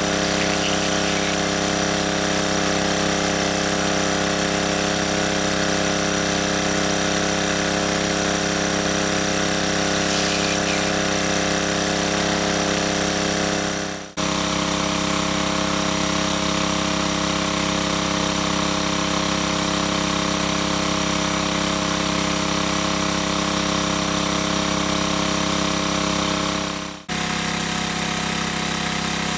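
A steady machine-like drone, even in level and pitch, that drops out briefly about halfway through and again near the end.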